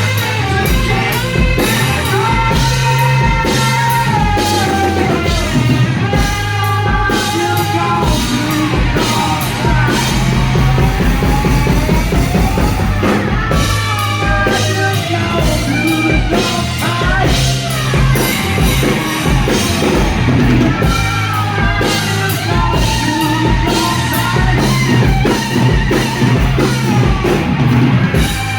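Live rock band playing loud: drum kit, bass and electric guitar, with a bending, sliding lead line over them.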